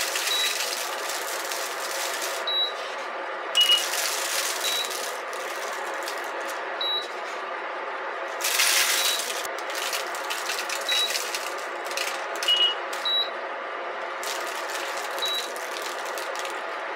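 Salt and black pepper sprinkled by hand over raw hasselback sweet potatoes on a foil-lined baking sheet, the grains pattering onto the foil and potatoes in several short spells of a second or two.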